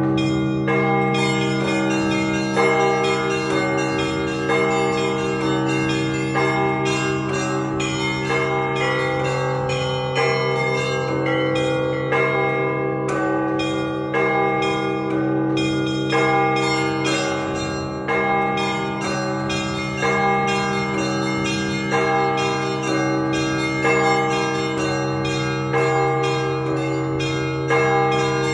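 Russian Orthodox church bell ringing on a 32-bell set, rung to call people to the service. The large bells hum beneath, small bells are struck in a fast, even rhythm, and the middle bells strike changing figures over them.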